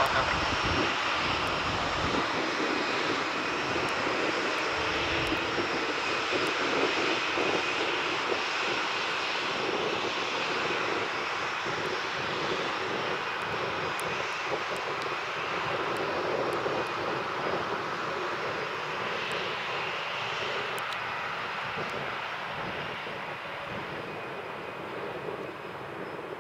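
Airbus A320's jet engines running at taxi power as it rolls onto the runway: a steady whine and hiss that slowly fades over the last few seconds as the aircraft moves away.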